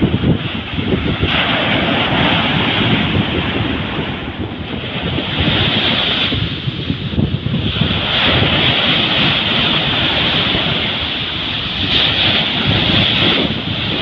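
Small waves breaking and washing up a sandy beach, the surf hiss swelling and easing in surges every few seconds, with wind rumbling on the microphone.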